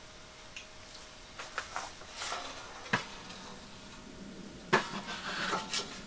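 Knocks and rattles of the steel frame and legs of a Petromax ge45-s gas table being handled, turned upright and set down. There are a few light knocks, a sharp one about three seconds in, and the loudest knock a little before the end, followed by a short clatter.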